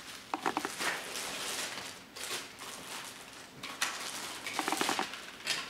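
Plastic packaging bags rustling and crinkling in uneven bursts as they are pulled open and slid off a ring flash and its controller, with a few brief squeaks of plastic.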